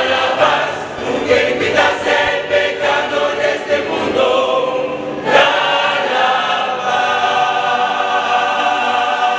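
A choir singing a hymn, moving through a series of short sung notes, then holding a long chord. A sharp percussive hit sounds about five seconds in.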